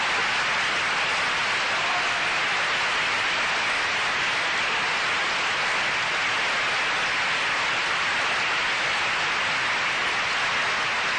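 Audience applauding steadily, a dense, even clapping with no single claps standing out.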